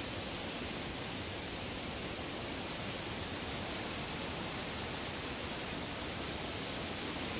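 Woodland ambience: a steady, even hiss with no distinct calls or other events.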